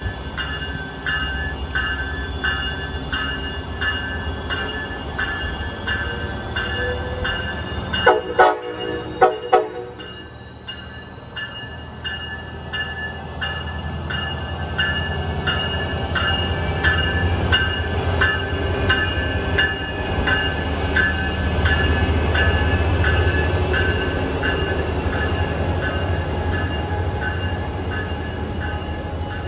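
Amtrak Pacific Surfliner train with a Siemens Charger diesel locomotive pulling into a station. A bell rings steadily at about two strokes a second, and the horn sounds a few short blasts about eight seconds in. The low diesel rumble of the locomotive builds as it draws level and passes.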